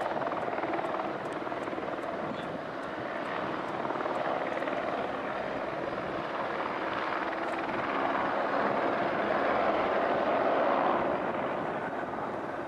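Small helicopter flying past low overhead, its rotor and engine noise swelling to a peak about ten seconds in and then fading as it moves off.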